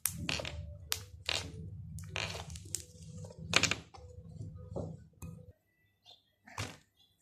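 Homemade glue slime being squeezed and stretched in the hands, giving off a string of irregular little wet pops and clicks.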